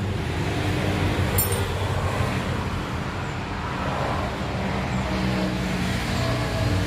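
A motor vehicle engine running steadily amid road traffic noise, with a short high click about a second and a half in.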